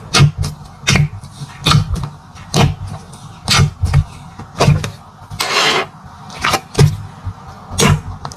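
Slime being squeezed and pressed by hand, giving a run of sharp wet pops and clicks, about one or two a second, with a longer squelch about five and a half seconds in.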